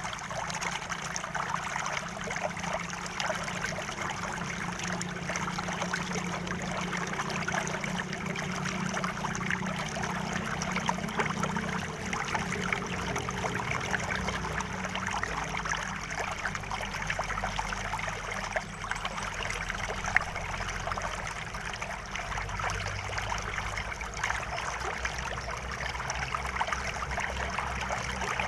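River water flowing steadily, a continuous babbling and trickling with a low rumble underneath.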